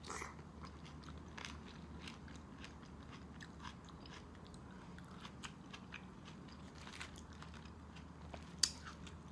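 A person chewing and biting crispy baked pork and tomato, with many small crunchy clicks and a sharper crack near the end.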